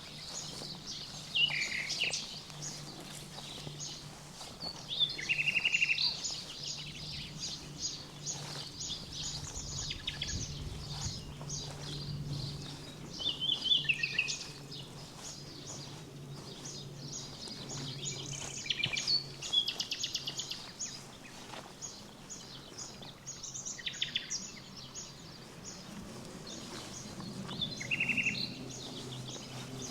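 Songbirds singing: short, bright trilled phrases repeating every few seconds, over a faint low steady hum.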